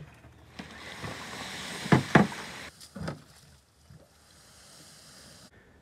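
Fiberglass canoe being pushed off through shallow water and wet leaves: a scraping, sliding hiss, with two sharp knocks close together about two seconds in and another about a second later.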